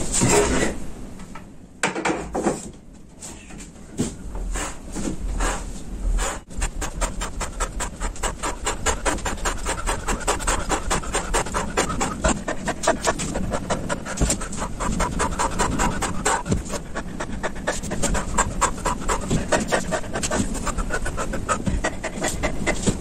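A man panting hard from exertion during continuous pull-up-bar and dip exercises. The breaths are scattered at first, then fast and even from about six seconds in.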